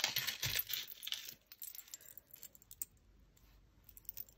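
Small metal costume jewellery, chains and charms, clinking and jingling as hands rummage through a plastic tub of it. The jingling is busiest in the first second and a half, then thins to a few light clicks.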